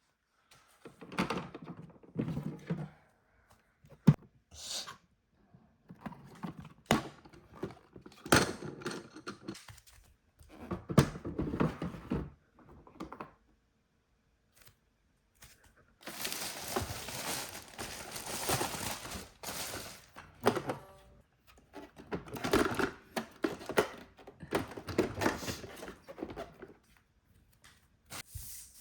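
Hands-on handling of objects and packaging: a run of thuds and knocks as things are picked up and set down, with a few seconds of continuous rustling partway through.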